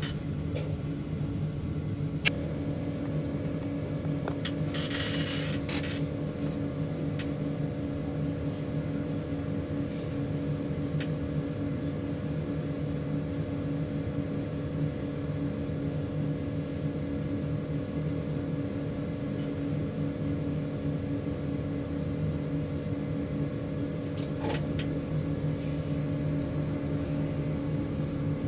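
Tower crane drive motors running steadily in the operator's cab, a hum with several fixed tones, one higher tone joining about two seconds in, while the crane slews and the hook moves. A short hiss comes about five seconds in, and there are a few faint clicks.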